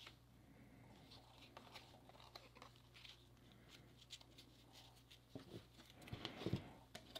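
Faint flicks and slides of trading cards being leafed through one at a time, then a louder rustle with soft thuds about six seconds in as cards are set down on the table.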